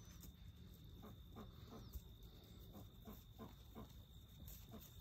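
Faint run of short animal calls, quick and repeated about three times a second.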